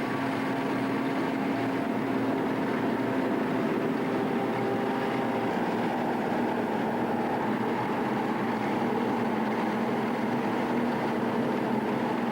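John Deere self-propelled forage harvester running steadily while chopping maize: an even mechanical drone with a steady hum.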